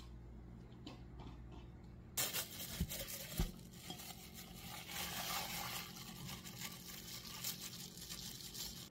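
Thin plastic bag of seaweed soup crinkling and rustling as it is opened and squeezed out by hand, starting about two seconds in, with two short knocks soon after.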